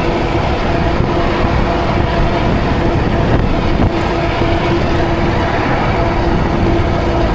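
Ridstar Q20 e-bike riding at speed: wind noise rushing over the microphone along with road noise, and a steady whine from its electric motor held at one pitch.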